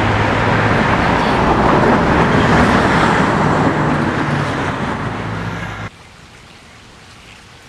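Road traffic noise with a vehicle engine running close by, swelling and then easing off, cut off abruptly about six seconds in to a quiet outdoor hush.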